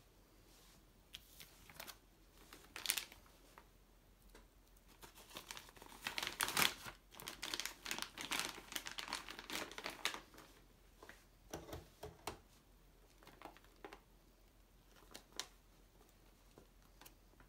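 Clear plastic vacuum-sealer bag crinkling and rustling in the hands as food is put in and the bag is laid on the sealing bar, with a few light taps. The rustling is busiest in the middle and thins out toward the end.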